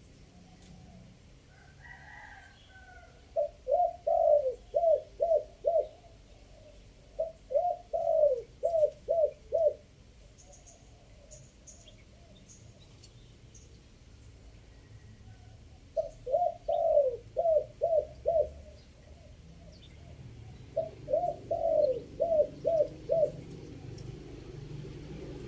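Spotted dove cooing: four phrases of about six quick coos each, with a few faint chirps from small birds between them.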